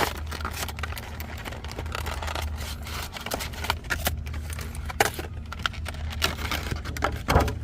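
Plastic wrapping of a trading-card trial deck being opened and crinkled, with cards being handled, making many short crackles and clicks over a steady low hum.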